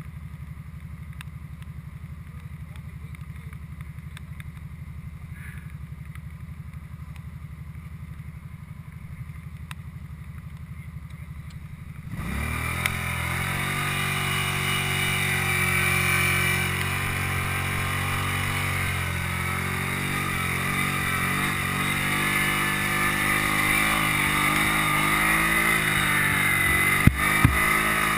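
ATV engine running at a low, steady idle, then about twelve seconds in suddenly much louder as it runs under throttle, its pitch rising and falling as the rider works the throttle. Two sharp knocks near the end.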